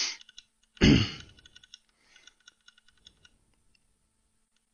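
Computer keyboard keys clicking in quick runs of repeated presses, scrolling through text. A loud breathy rush on the microphone comes about a second in. The clicking stops after about three seconds.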